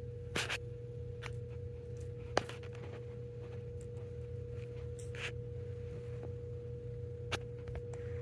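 A dog noses through blankets, making a few short sniffs and rustles and a sharp click a little over two seconds in. Under it runs a steady hum with a high, pure tone.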